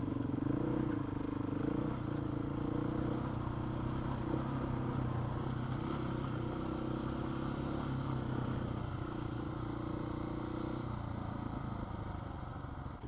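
Adventure motorcycle engine running steadily at cruising speed.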